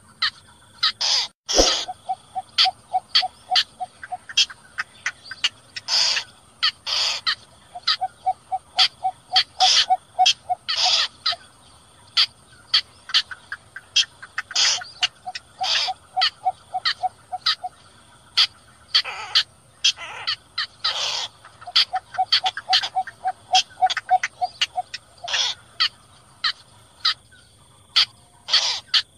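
Recorded bittern calls used as a night-netting lure (cò lép and cò lửa, the cinnamon bittern): many short, sharp calls repeated at uneven intervals. Several times these are broken by a run of rapid low pulsing notes, about ten a second for a couple of seconds.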